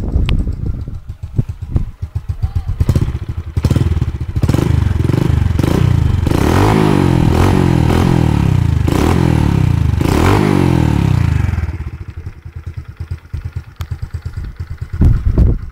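Honda Biz 125's single-cylinder four-stroke engine breathing through a Roncar SS1 aftermarket exhaust: idling, then revved up and down several times in a row before settling back to idle, with a couple of sharp blips at the end.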